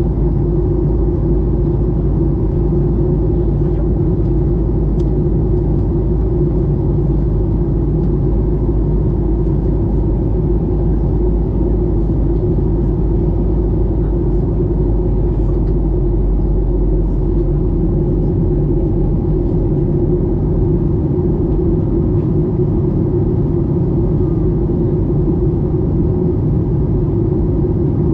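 Steady in-cabin drone of a Boeing 737-800 in flight: its CFM56 turbofan engines and the airflow past the fuselage make a constant low rumble and hum. The deepest part of the rumble eases slightly about two-thirds of the way through.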